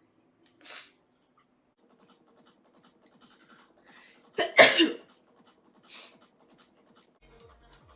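One loud human sneeze a little past halfway, preceded by a quick intake of breath, with short breaths or sniffs before and after it.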